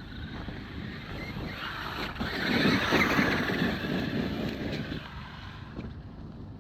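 Traxxas X-Maxx RC truck driving over icy ground: a rush of tyre and drivetrain noise that swells about two seconds in, peaks around three seconds and fades away.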